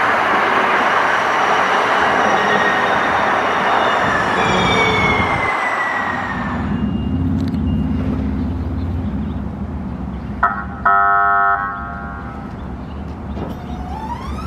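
Siemens S70 light-rail trolley passing on the track, its rumble and wheel noise fading with a falling whine over the first six seconds. Then a low steady hum, a single horn toot of about a second about ten and a half seconds in, and a rising whine that starts near the end.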